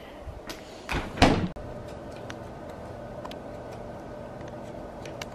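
Two dull knocks about a second in, then a steady hum with a faint tick now and then.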